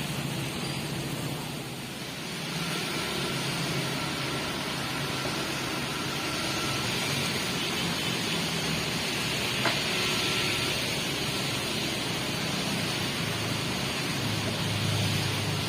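Heavy-vehicle engine running steadily with a low hum and a hiss of machinery noise, with a single sharp click about ten seconds in.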